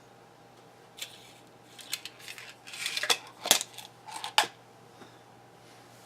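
A run of clicks, rustling and light clatter from small hard objects being handled, with two sharp clicks a little past the middle.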